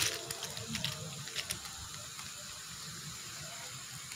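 Chopped vegetables tipped from a plastic basket into a pot of boiling broth, with a few light knocks and splashes in the first second and a half, then a steady hiss from the pot.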